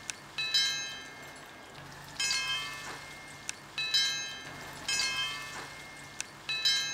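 Chimes ringing in a repeating pattern: several clusters of bright metallic tones a second or two apart, each struck sharply and fading out, over a faint low drone.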